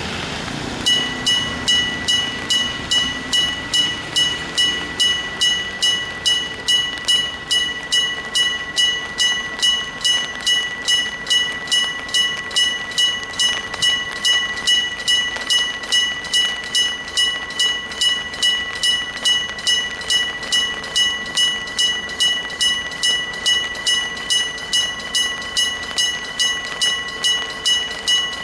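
Electric-bell railway level-crossing warning bell starts ringing about a second in, struck by its hammer about twice a second in an even, steady rhythm with a clear ringing tone.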